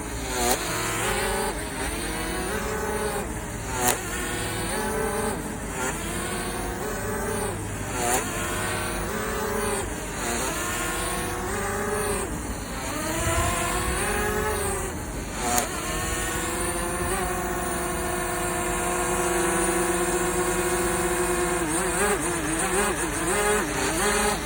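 DJI Mavic Mini's brushless motors and propellers running with an unsteady whine: the pitch surges up and falls back about every two seconds, with a few sharp clicks, and holds steadier for a few seconds near the end. The uploader puts this noise down to replacement propellers probably fitted the wrong way after a crash, with mismatched pairs or props on the wrong motors.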